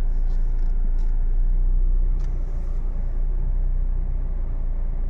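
Jeep Compass engine running with a steady low rumble as the car reverses slowly.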